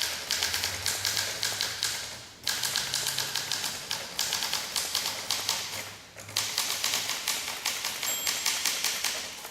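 Typing on a 1958 Olympia SM2 manual portable typewriter: rapid keystroke clacks in three runs with two brief breaks, and a short ringing tone about eight seconds in.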